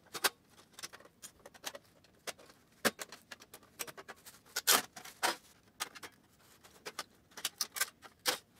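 Irregular sharp plastic clicks, snaps and knocks as the casing of an HP LaserJet 1010 laser printer is pried open and its covers unclipped by hand, with a few louder snaps around the middle.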